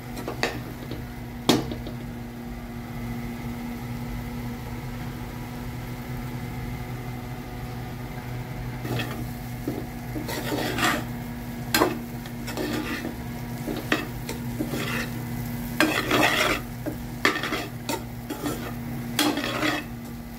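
Steel spoon scraping and clinking against a stainless steel pan as crumbled egg masala is stirred. For most of the first half there is only a steady hum with a single click. From about halfway, the strokes come in repeated bursts.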